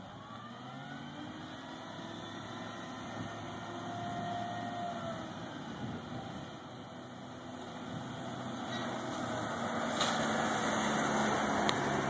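Vehicle engines running: a pickup truck drives up the street and passes close, with a work truck's engine running behind it. The engine and road noise grow steadily louder over the last few seconds.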